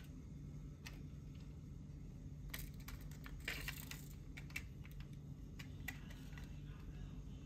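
Light clicks, taps and a brief scrape of die-cast toy cars being set onto and pushed along the decks of a toy car-carrier trailer, with the loudest scrape about midway, over a low steady hum.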